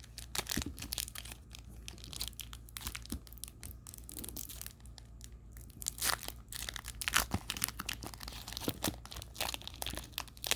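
Foil trading card pack being torn open and crinkled by hand, an irregular run of tearing and crackling wrapper sounds.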